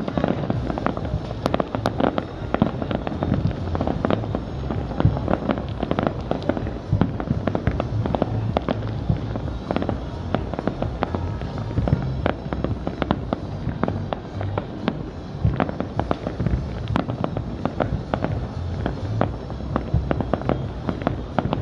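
Fireworks going off in a dense, continuous barrage: many sharp bangs and crackles a second over a rolling low boom, with no pause.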